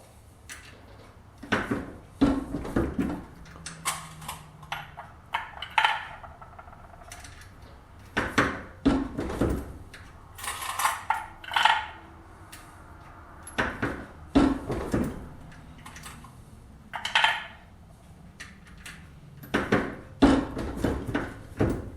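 Brass .223 cases clinking and knocking against metal as they are handled and worked at a reloading press, in irregular clunks, some with a short metallic ring.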